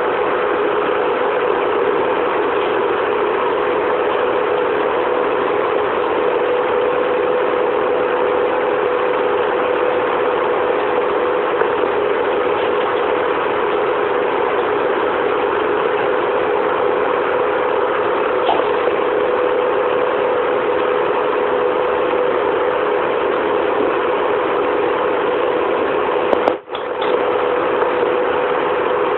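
A pan of milky masala tea simmering on a stove: a steady rushing noise with a constant hum, broken once by a brief dropout near the end.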